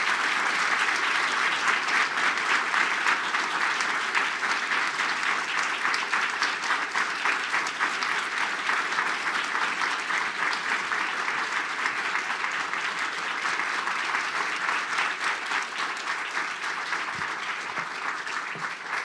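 Large audience applauding steadily, slowly dying down near the end.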